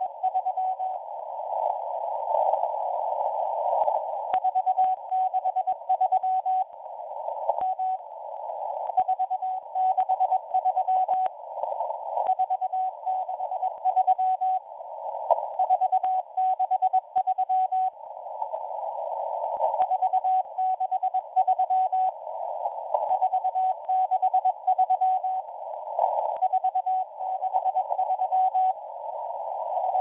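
Shortwave Morse code number station (M01) sending groups of number characters as a single keyed beep tone. The tone sits in a narrow band of receiver hiss, with short pauses of hiss between the groups and scattered static crackles.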